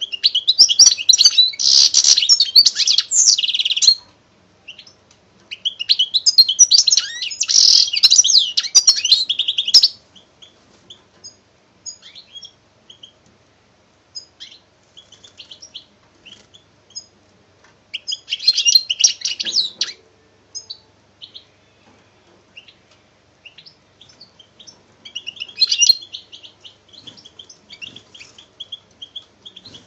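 A small songbird singing: four bursts of rapid, high-pitched chirping and trilling a few seconds each, with scattered single chirps between.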